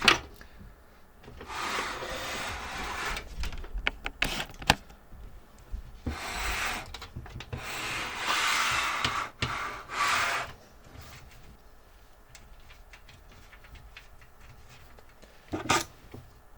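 Computer cables being pulled and dragged through a PC case, a rubbing, scraping noise in three stretches with scattered clicks and knocks of the cables and connectors against the case. It goes quieter after about ten seconds, leaving faint handling and a couple of clicks near the end.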